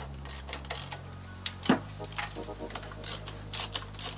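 Metal tools clinking and clicking against the scooter's bolts and bracket in irregular short knocks as parts are unbolted.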